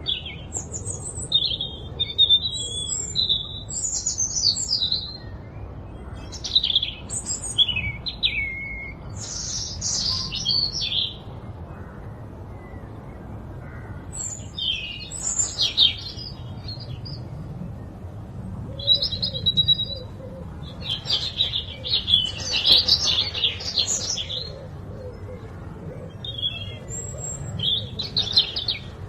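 Birds chirping and singing in short overlapping phrases, with a lull about halfway through, over a faint low rumble.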